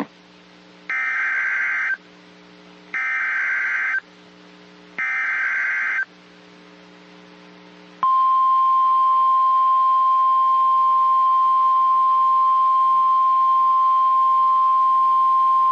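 NOAA Weather Radio SAME alert: three short bursts of digital data header, each about a second long and a second apart, then the long steady single-pitch Weather Radio alert tone starting about eight seconds in. Here the alert precedes a severe thunderstorm watch.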